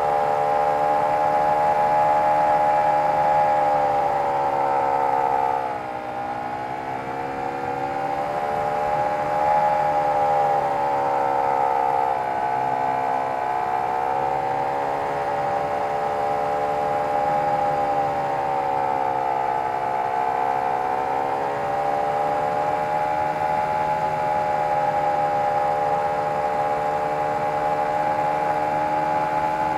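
O.S. FT-120 Gemini II four-stroke twin-cylinder glow engine running in flight on a large RC model airplane, heard from a camera on board. Its pitch and loudness dip about six seconds in as it is throttled back, then climb again, with another slight dip around twenty seconds.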